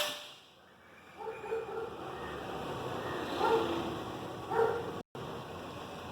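A sharp air-rifle report at the very start, then a dog barking three times, short barks spaced a second or two apart.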